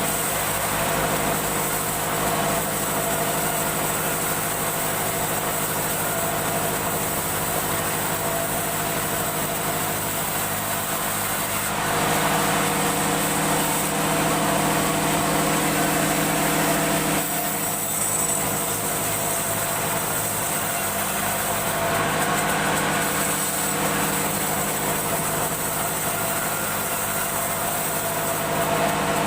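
A woodworking machine's motor running steadily, growing louder and rougher for several seconds about halfway through.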